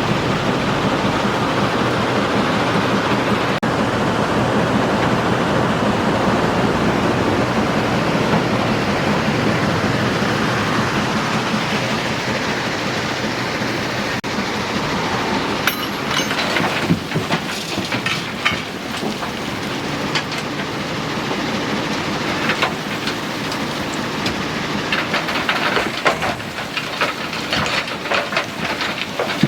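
Hyundai excavator's diesel engine running steadily. About halfway through, irregular rattling and clattering joins it, typical of the machine working and loaded material spilling into a dump truck bed.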